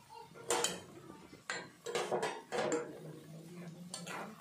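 Kitchen utensils clinking and knocking against a wok of boiling curry: half a dozen separate sharp clinks spread over a few seconds.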